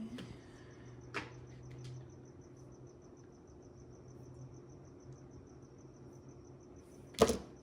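A cricket chirping steadily in fast, even pulses over a low hum. A mahjong tile clicks about a second in, and a louder clack of tiles comes near the end.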